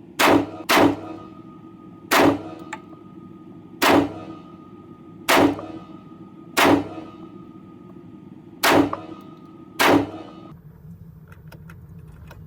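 Black Rain Ordnance Fallout 15 AR-15 rifle firing eight single shots at an unhurried pace, the first two close together and the rest about one to two seconds apart, each with a short ringing tail.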